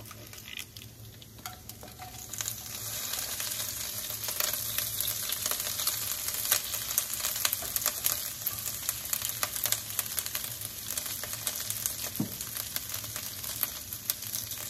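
Chopped scallions and ginger sizzling and crackling in a little hot rice oil in a wok. The sizzle is faint at first and grows louder about two seconds in, then holds steady with fine crackles.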